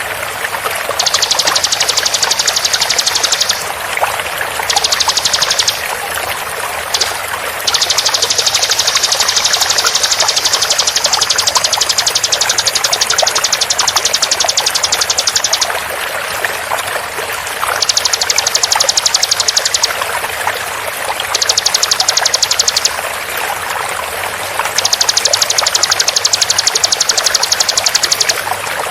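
Bar-winged prinia (ciblek) song in its fast 'tembakan' form: repeated bursts of a very rapid, high-pitched trill, each lasting from about a second to about eight seconds, with short gaps between. Steady running water sounds underneath.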